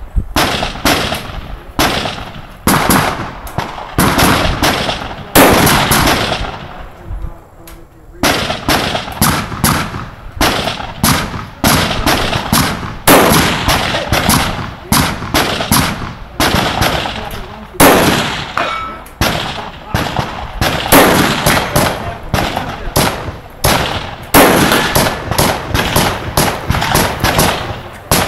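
A string of rifle shots fired in quick succession, roughly one to two a second, each with a short ringing tail. The firing breaks off for about two seconds near a quarter of the way in, then resumes at a steady pace.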